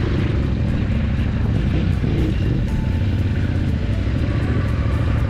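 KTM 890 Adventure R's parallel-twin engine running steadily at low revs as the motorcycle rolls off from a stop, with background music underneath.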